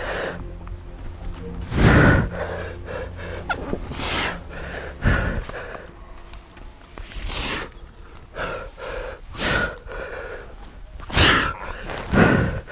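A rock climber's forceful exhalations and grunts of effort while pulling through hard moves, about seven sharp breaths one every second or two.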